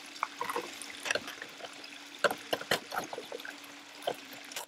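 Plastic clips and filter panels of a robotic pool cleaner's filter cartridge being turned and fitted: a run of light, irregular clicks and knocks over a steady hiss and a faint hum.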